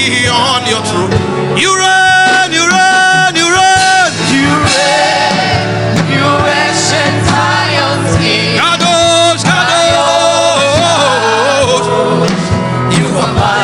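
Gospel worship singing over steady instrumental accompaniment: a voice chanting long held notes that waver and slide.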